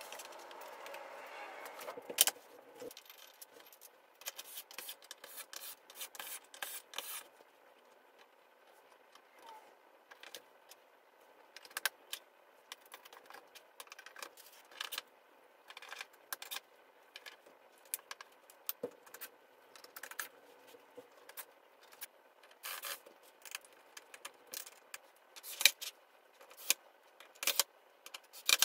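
Scattered clicks, clinks and scrapes of flat-pack furniture being put together: small metal hardware rattling, and black particle-board panels and a metal rail being handled and fitted.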